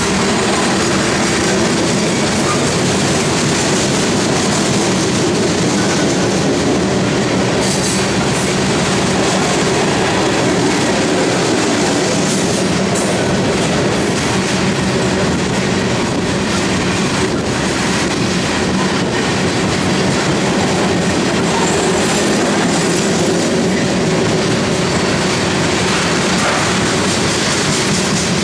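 Loaded coal cars of a freight train rolling steadily past: a continuous rumble of steel wheels on rail, with occasional clacks as the wheels cross the track.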